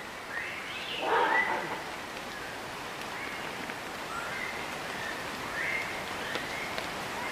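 An unidentified wild animal calling repeatedly: short, high, chirping calls that bend in pitch, about one a second, with one louder, fuller call about a second in, over a steady background hiss.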